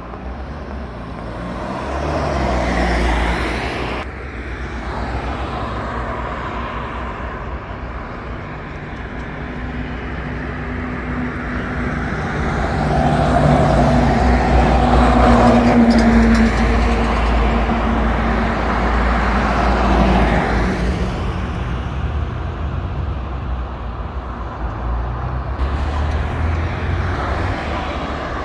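Road traffic passing along a suburban main road: a vehicle goes by a few seconds in, then a louder one with a low engine hum builds and fades over several seconds in the middle.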